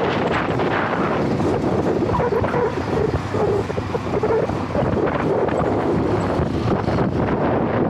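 Wind buffeting the microphone of a helmet-mounted action camera on a moving electric scooter, a steady rushing noise with road noise underneath. From about two seconds in, a fainter pitched sound comes and goes for a couple of seconds.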